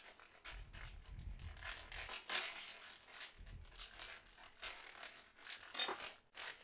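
Plastic bag of frozen peas crinkling and rustling in irregular crackles as it is worked open by hand and with a knife.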